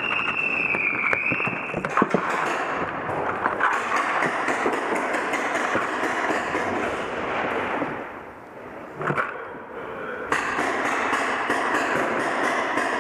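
Rapid paintball fire echoing in a large indoor hall: many markers popping in dense, overlapping strings of shots. A steady high tone sounds over the first couple of seconds; the firing eases off about eight seconds in and picks back up about ten seconds in, as quick even strings of shots.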